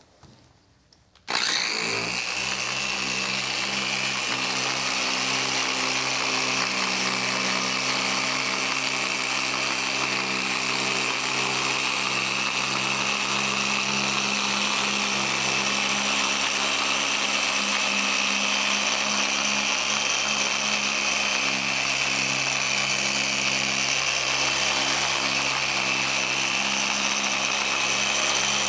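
Electric variable-speed polisher switching on about a second in, then running steadily with a high motor whine as its pad buffs metal polish over a table saw's metal top.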